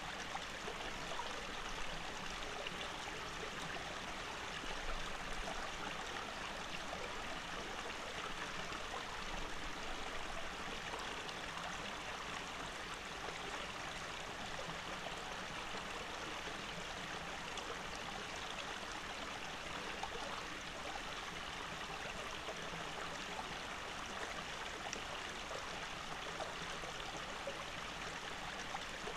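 Small, shallow rocky stream running over stones: a steady, even rush of water with no breaks.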